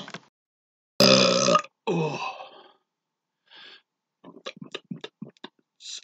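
A man belching twice in quick succession, a long deep burp followed by a shorter one, forced out to shape words in burped speech. A run of short, faint mouth clicks follows as he works up the next burp.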